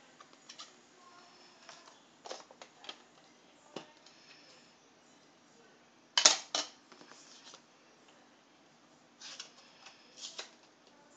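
Playing cards being handled during a card trick: scattered light clicks and rustles, the loudest a short double rustle about six seconds in, with a few more near the end.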